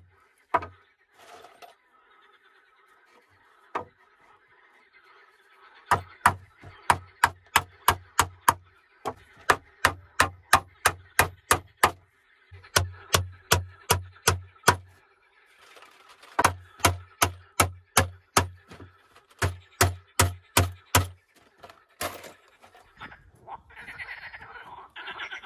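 Hammer driving nails into wooden floor slats: quick runs of sharp strikes, about three a second, with short pauses between nails. Near the end, frogs croaking.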